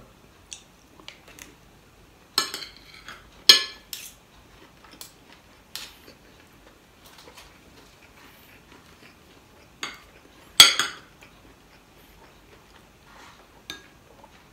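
Metal spoon and fork clinking and scraping against plates and a small dish during a meal, in scattered sharp clinks; the loudest come about three and a half and ten and a half seconds in.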